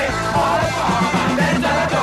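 A band's song playing back from a very old, much-worn cassette tape, so the sound quality is poor.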